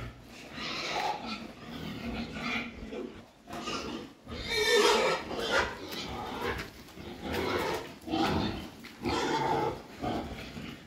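Pigs grunting, a string of separate grunts every half second to a second, the loudest about halfway through.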